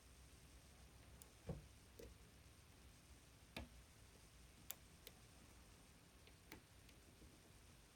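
Faint, irregular clicks and light taps of a lock pick and two tension wrenches working the pins of an Assa 600 oval cylinder with gin-bottle spool pins. About half a dozen scattered clicks, the loudest a duller knock about a second and a half in.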